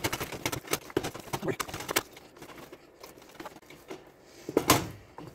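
Wooden spoon beating a thick, stiff egg dough by hand in a stainless steel pot: irregular wet slaps and scrapes, busiest in the first two seconds, then sparser, with one louder knock near the end.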